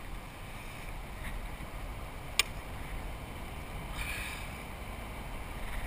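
Steady wind and water noise around a kayak on open water, with one sharp click about two and a half seconds in.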